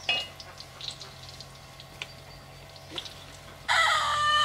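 Rooster crowing once near the end, a single call about a second long whose pitch falls at the close. Before it come a brief sharp chirp at the very start and a few faint clicks and chirps.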